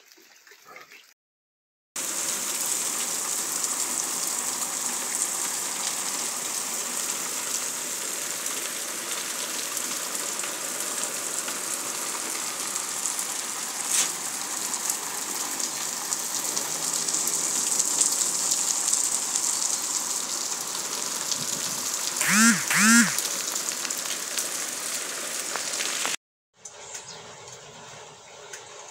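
Rain falling steadily, an even dense hiss. Near the end two short calls from an animal, under a second apart, sound over it, and then it cuts to a quieter stretch of rain.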